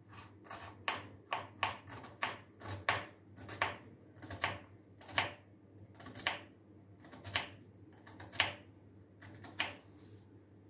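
A kitchen knife slicing a peeled onion into thin slices on a wooden cutting board: each cut ends in a sharp tap of the blade on the board. The taps come irregularly, about two to three a second, and stop near the end.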